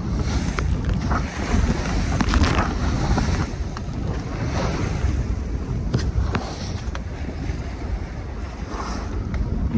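Sea rushing and splashing along the hull of a Contessa 26 sailboat driving through big waves, with spray hitting the deck in short sharp splashes, under a steady rumble of wind on the microphone.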